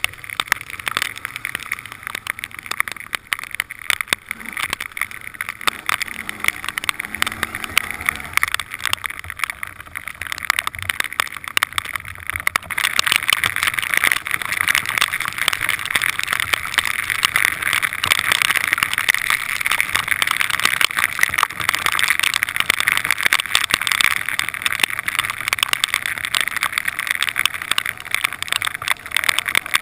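Quad bike (ATV) riding over rough, grassy ground: engine noise mixed with a constant clatter of small knocks and rattles, getting louder about a third of the way in.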